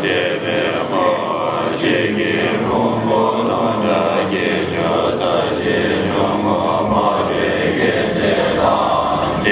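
Many voices chanting Buddhist prayers together in a continuous, steady chant.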